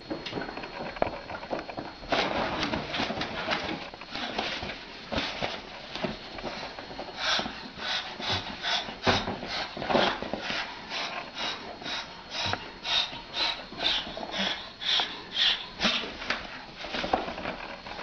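Moluccan cockatoo with its crest raised hissing at a cat in sharp, breathy puffs, about two a second, from about a third of the way in. Before that, rustling on the sofa fabric.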